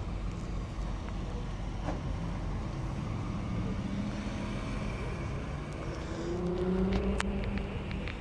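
A car engine running at low speed over a steady low rumble, growing louder about six to seven seconds in as it passes close by.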